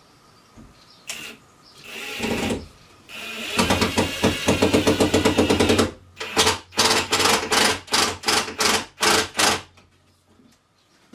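Cordless drill-driver driving screws into wood: a short run, then a longer run of about three seconds with a rapid rattle, then about ten quick trigger bursts as the screw is snugged home.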